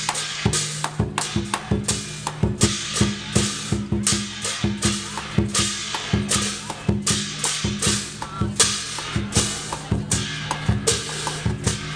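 Chinese lion-dance drum, a large red barrel drum, beaten in a fast, steady rhythm along with hand cymbals.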